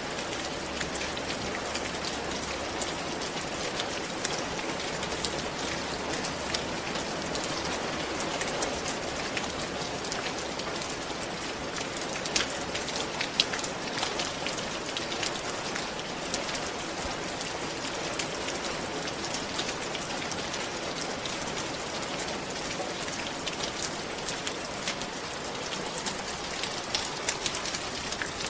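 Steady rain falling on a roof, a constant patter with many sharp individual drop ticks scattered through it.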